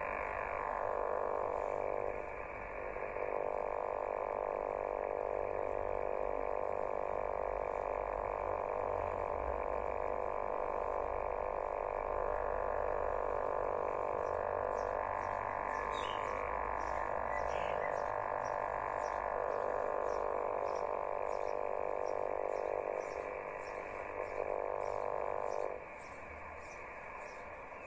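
Yaesu portable transceiver's speaker putting out steady buzzing interference noise on the 6 m band in USB mode, with a few steady tones in it; the QRM holds the S-meter at about S8 and would mask weak signals. The noise drops in level about two seconds before the end.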